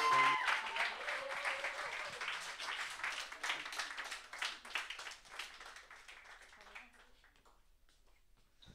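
A small audience applauding at the end of a song, the clapping thinning out and fading away after about seven seconds.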